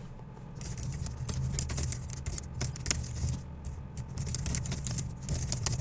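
Typing on a computer keyboard: a rapid, uneven run of key clicks over a low, steady hum.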